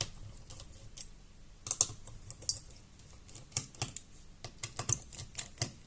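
Irregular light clicks and taps of small parts and tools being handled while a laptop's heatsink is taken out, in loose clusters about two seconds in and again through the second half.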